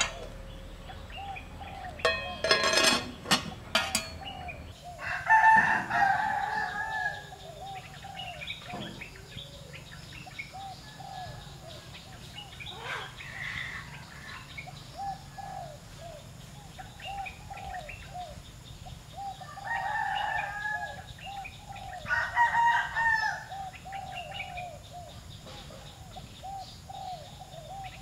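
Rooster crowing a few times over steady clucking and chirping of chickens and small birds, with a few sharp clacks in the first few seconds.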